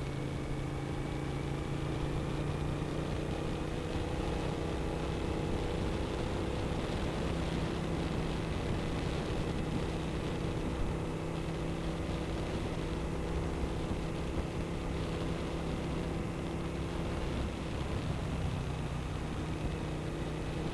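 2007 Suzuki SV1000S's 90-degree V-twin engine running at a steady cruise, its pitch rising slightly over the first several seconds, with steady wind and road noise over it.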